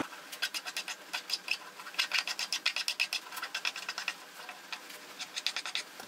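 Hand file scraping along the edge of a freshly milled aluminium block, deburring it. The strokes come quick and short in several runs with brief pauses between them.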